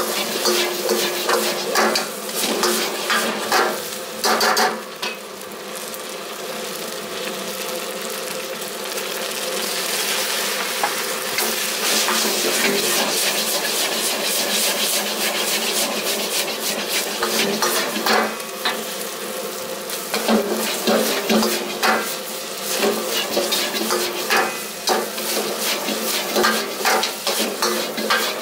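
Fried rice sizzling in a wok while a metal wok ladle scrapes and clanks against the pan. The ladle strokes come in quick runs in the first few seconds and again from about two-thirds of the way through, with a steadier sizzle in between.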